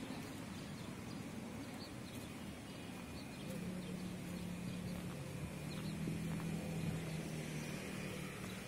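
Open-air background noise with a steady low engine drone that comes in about three and a half seconds in and holds until near the end.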